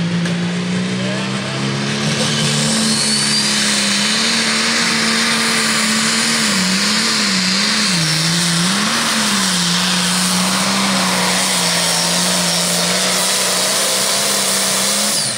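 Turbocharged diesel engine of an International Harvester pulling tractor running flat out under load down the pull track. The engine note climbs early on, then holds steady. Midway the engine speed dips and recovers three times in quick succession, then settles a little lower.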